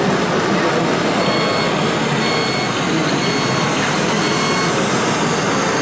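Radio-controlled model tractors running on a dirt track in a hall, a steady busy din, with a high electronic beep repeating about once a second, like a reversing alarm.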